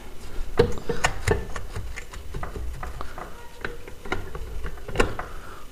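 Irregular light clicks and knocks of hands and metal parts being worked on a motorcycle's exhaust header, as it is being unbolted for removal.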